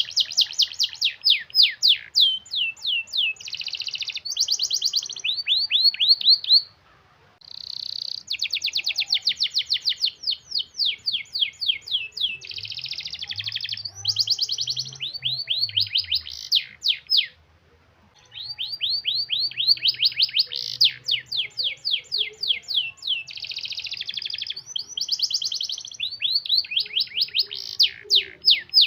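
Domestic canary in full song: long, dense rolling phrases of rapid repeated notes and trills. There are brief pauses about 7 and 18 seconds in.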